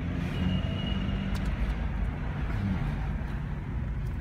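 Car driving slowly, heard from inside the cabin: a steady low engine and road rumble.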